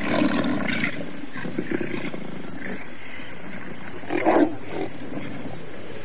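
Lioness growling and snarling in short rough bursts, the loudest about four seconds in. It is a warning snarl at the young males she does not want near her.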